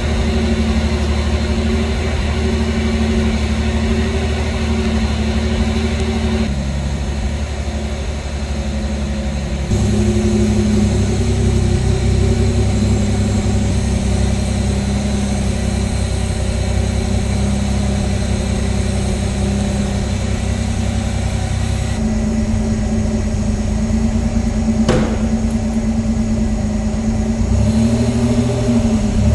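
1985 Pontiac Fiero GT's 2.8-litre V6 running at idle after a fresh start. Its note steps up or down abruptly a few times, and there is a single sharp click near the end.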